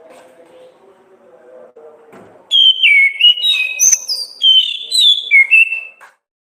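Orange-headed thrush (anis kembang) singing a loud, fast run of varied whistled notes that jump up and down in pitch. It comes in about two and a half seconds in after a faint low murmur, and cuts off abruptly near the end.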